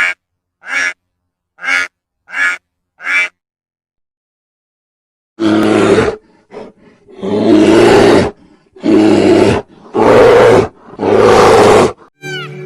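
Animal calls: five short calls in quick succession, then after a pause of about two seconds a series of five loud, longer calls.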